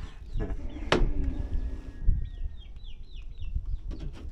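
Chickens calling, with clucking and then a quick series of short falling peeps, about three to four a second. A sharp knock comes just under a second in.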